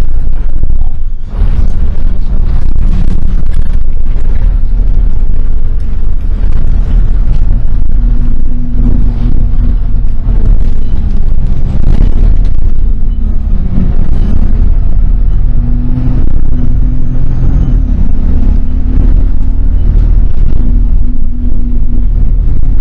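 Loud, steady rumble of motor traffic, with faint engine tones coming and going.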